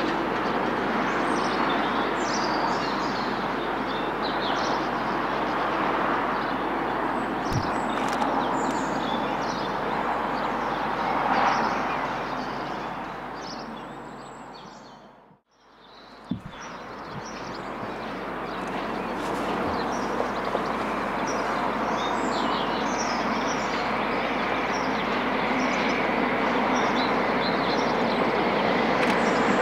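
Train running on the line with birds chirping, its rumble fading to almost nothing about halfway through. The sound then fades back in with birdsong as a diesel-hauled passenger train approaches, growing louder near the end.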